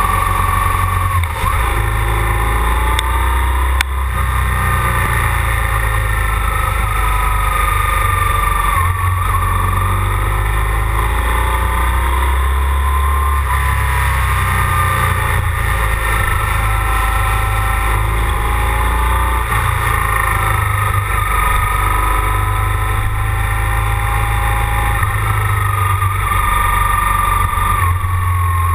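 BMW GS boxer-twin motorcycle riding at road speed, its engine note rising and falling through the curves, with heavy wind rush on the microphone.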